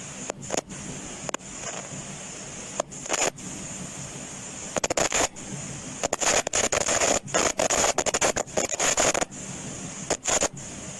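Microphone distortion: a steady electrical hum and high whine, broken by loud, irregular bursts of crackling and scratching, in clusters about 3 and 5 seconds in, through most of the middle, and again near the end.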